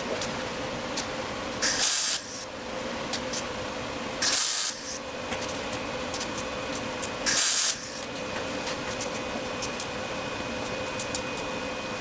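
Three short tack welds on sheet-metal patch panels, each a crackling hiss of about half a second, spaced a few seconds apart, over a steady background hiss.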